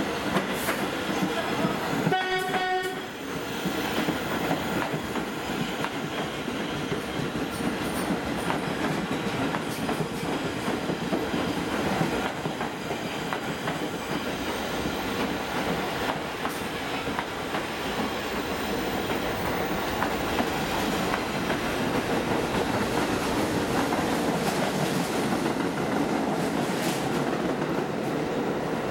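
Pullman Standard R46 subway train giving a short horn blast about two seconds in, then running past along the platform with a steady rumble of steel wheels on the rails and an occasional knock.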